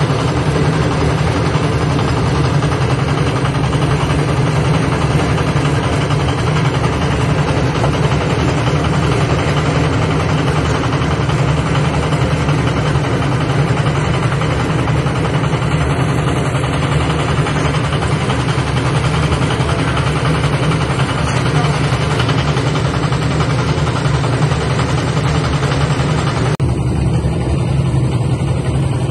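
An engine running steadily at a constant speed, a deep hum with a rougher mechanical noise over it; about two and a half seconds before the end the higher part of the sound suddenly drops away while the low hum carries on.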